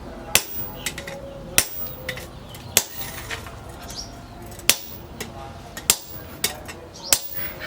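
Blacksmith's hammer striking steel on an anvil, with a heavy blow about every second and lighter taps between. Each blow leaves a short metallic ring.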